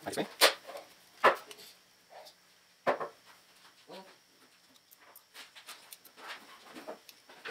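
Sharp plastic clicks and taps as a small DC motor is handled and fitted into a watch winder's white plastic gearbox housing: three loudest clicks in the first three seconds, then fainter handling ticks and rustles.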